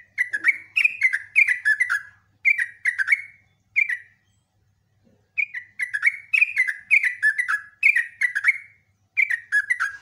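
Yellow-vented bulbul (trucukan) singing its bubbling, chattering song: phrases of quick notes that slide downward, with short breaks between them and a long unbroken run from about five seconds in.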